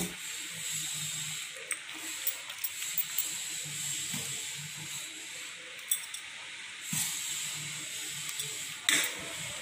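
A metal spoon clinks and scrapes against a metal kadai while cooked dal is mixed into boiled cabbage. The clinks come off and on over a steady hiss.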